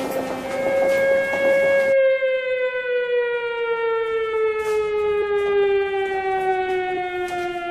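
Wartime air-raid siren wailing, its pitch sliding slowly and steadily downward. A rumbling background noise under it cuts off suddenly about two seconds in.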